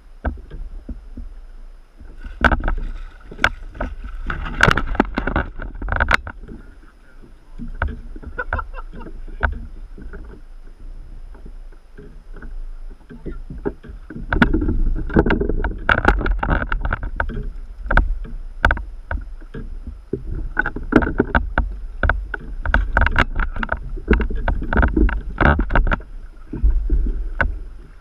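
Water sloshing and knocking against a plastic fishing kayak's hull, with many sharp knocks and clatter of gear on the boat and a low wind rumble on the camera microphone. It is busier and louder in a stretch about two seconds in and again from about halfway through.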